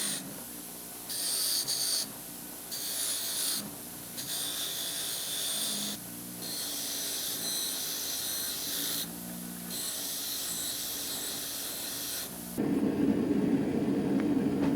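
Forged rebar handle halves pressed against a spinning wire wheel in repeated passes, a scratchy hiss that comes and goes every second or few seconds. About twelve and a half seconds in it gives way to a louder, steady rushing noise.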